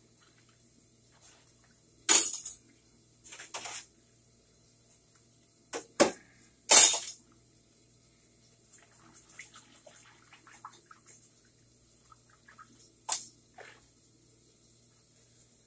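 Kitchen-sink sounds: several short splashes and rushes of water, the loudest about seven seconds in, with faint clinks and rattles between them over a steady low hum.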